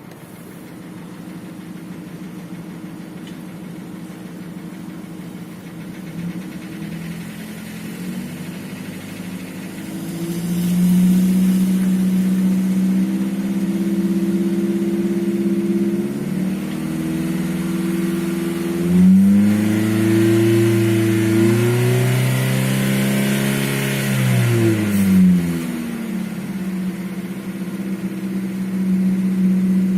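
Nissan QG18DE 1.8-litre four-cylinder petrol engine, not yet at operating temperature, rising from idle to a steady higher speed of around 2000 rpm. Its pitch climbs in steps about 7 to 11 seconds in, goes higher still from about 19 to 25 seconds, then drops back and holds. The engine has a knock that the owner says gets quieter as the revs rise to 2000 and is hardly heard above that.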